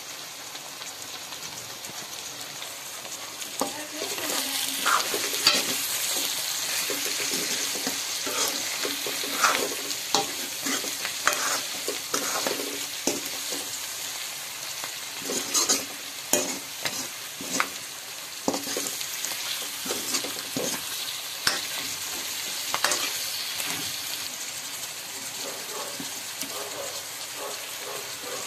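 Bone-in meat, radish and onion frying in oil in a metal wok, a steady sizzle that gets louder about four seconds in. A metal spoon stirs and scrapes the pan throughout, making frequent sharp clicks and scrapes against the wok that thin out toward the end.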